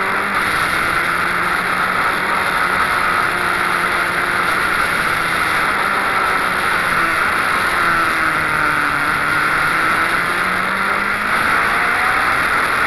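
Wolf GB08 Honda sports prototype at speed, recorded on board: its engine rises and falls in pitch through the corners and gear changes, under a steady loud rush of wind and road noise.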